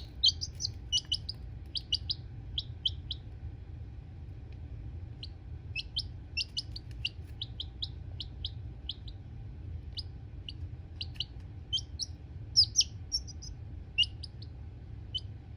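Lavender Orpington chick peeping: many short, high peeps in irregular runs, over a steady low hum.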